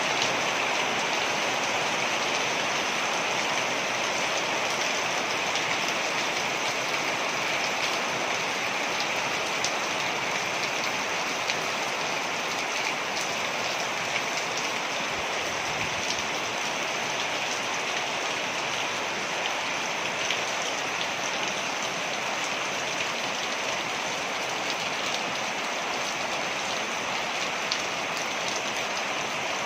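Waterfall: a steady rush of falling water, with faint scattered splashes and drips on top.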